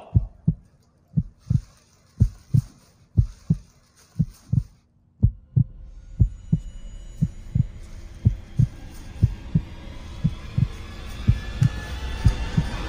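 Heartbeat sound effect in a thriller score: a steady double thump, lub-dub, about once a second. About halfway through, a low droning swell of music enters beneath it and grows louder toward the end.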